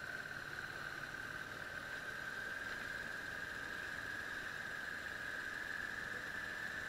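A motorcycle ride heard through an action camera's sealed waterproof case, muffled: a steady high whine that climbs slightly in pitch over a faint even hiss.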